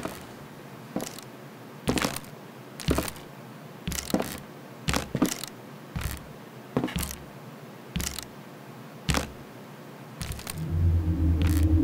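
Boots walking slowly on wooden floorboards, about one step a second, each step a short knock. Near the end a low droning music swells in.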